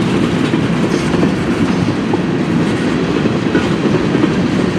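CN freight train rolling past, a steady loud rumble of steel wheels on the rails from the passing cars.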